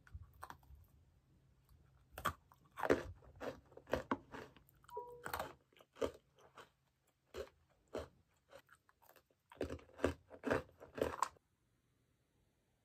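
Crisp whole-wheat sablé cookies being bitten and chewed: a string of irregular crunches that stops about a second and a half before the end.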